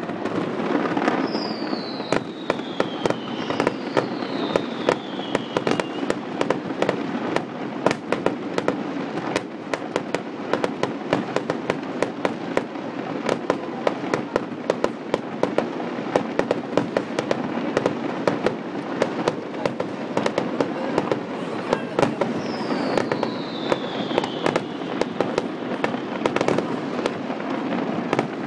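Fireworks display: a continuous run of bangs and crackling bursts, with three falling whistles, two near the start and one later on.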